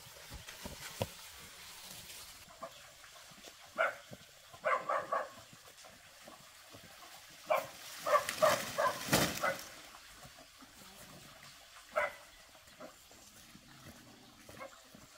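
An animal calling in short, pitched bursts at irregular intervals, with single calls and a quick run of several calls in the middle.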